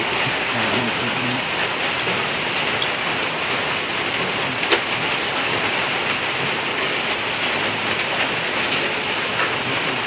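Steady rain falling: an even, unbroken hiss, with one small click about halfway through.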